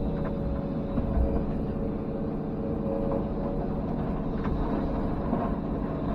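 Komatsu PC210 excavator's diesel engine running steadily under load, with a slightly wavering hydraulic whine and a few faint knocks from debris being worked.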